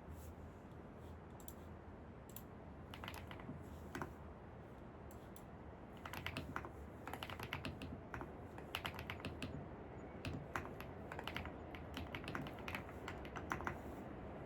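Computer keyboard typing: scattered keystrokes at first, then runs of fast typing from about six seconds in, over a steady low background noise.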